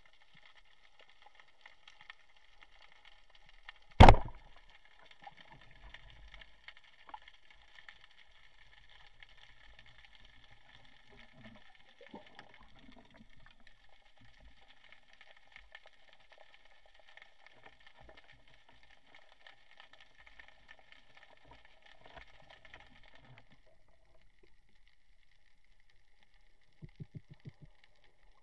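Wooden speargun fired underwater: one sharp, loud crack about four seconds in, over a faint steady crackle of the sea.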